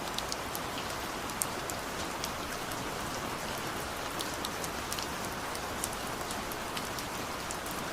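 Steady monsoon rain falling, with many scattered sharp ticks of individual drops.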